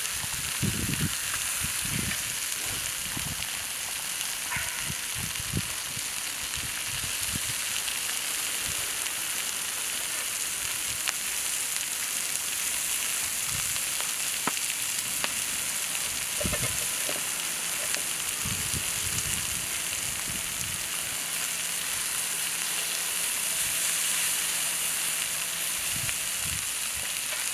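Whole mackerel and peppers sizzling steadily on a round griddle over a wood fire, with a few short low thumps scattered through.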